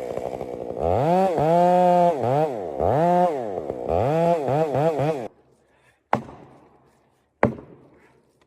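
Chainsaw engine revved in a series of throttle blips, its pitch rising and falling with each one, then stopping about five seconds in. Two sharp knocks follow, a little over a second apart.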